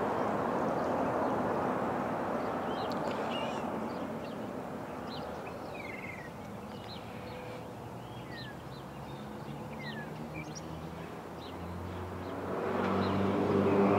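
Street traffic on a wet road: a vehicle's tyre and road noise fades away over the first few seconds, leaving small birds chirping. About twelve seconds in, another vehicle's engine comes in and grows louder as it approaches.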